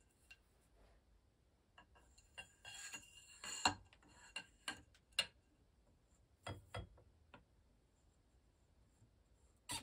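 Light clicks and a short scrape about three seconds in as the barrel shroud is slid over the .177 barrel liner and screwed onto an FX Dreamline air rifle, with a few more scattered clicks after.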